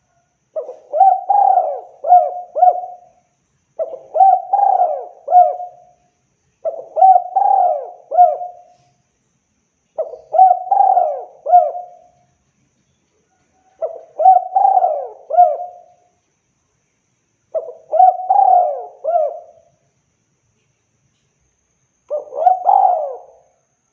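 Spotted dove (tekukur) cooing: seven phrases of several coos each, one about every three and a half seconds.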